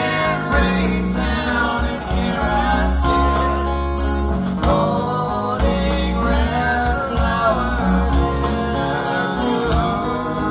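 A song with singing and guitar played back through King Sound King electrostatic panel speakers, heard in the room.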